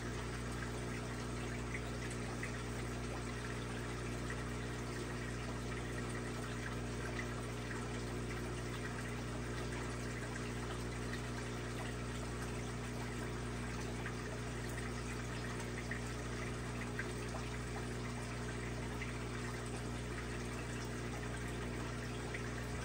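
Aquarium pumps and filters running: a steady low electrical hum over the wash of moving water.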